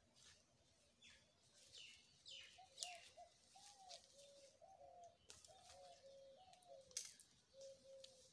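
Faint birdsong: a continuous run of short, low cooing notes, with sharp falling chirps from smaller birds above it and a couple of clicks.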